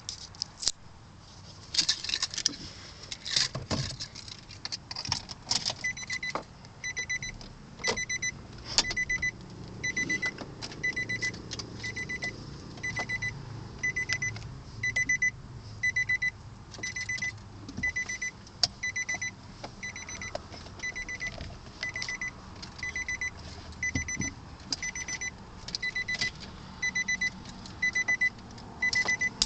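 Keys jangling and clicking, then a 2002 Nissan Altima's electronic warning chime repeating steadily about three times every two seconds. A low rumble runs under the chime for a few seconds about ten seconds in.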